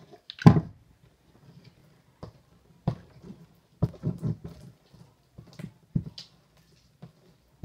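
Pink glitter slime being worked by hand inside a clear plastic tub just after a splash of saline solution: irregular wet slaps and thuds of the slime and tub, with a sharp knock about half a second in.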